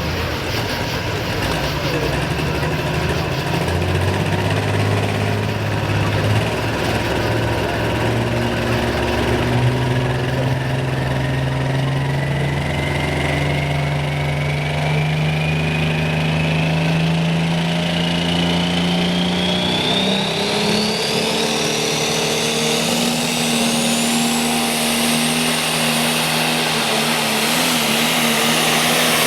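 Turbocharged diesel engine of a modified farm pulling tractor under heavy load, its pitch climbing steadily for about twenty seconds and jumping up once near the end. A high turbocharger whistle rises higher and higher through the second half.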